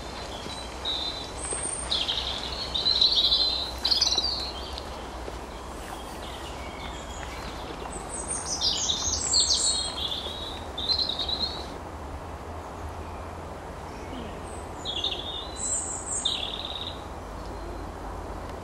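A songbird singing in three bouts of quick high chirping phrases: about a second in, around eight seconds in, and again around fifteen seconds in. A low steady rumble runs underneath.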